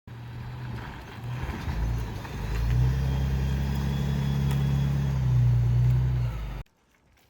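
Road vehicle engine running with a steady low hum, getting louder about three seconds in, then cutting off abruptly near the end.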